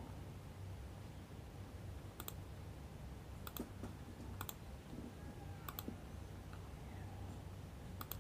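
Faint computer mouse clicks: about five, spread irregularly, each a quick double tick of the button going down and up, as options are picked from drop-down lists. A faint low hum lies underneath.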